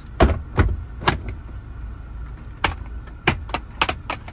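Milwaukee Packout plastic toolboxes being handled: a series of about eight sharp plastic clicks and knocks, several close together near the end, over a steady low hum.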